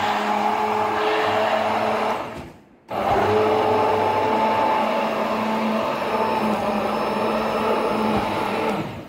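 Inalsa Robot Inox 1000W hand blender running in a beaker, its blades churning mango, milk and sugar into a shake. The motor cuts out briefly between two and three seconds in, then starts again suddenly and runs steadily until it fades out just before the end.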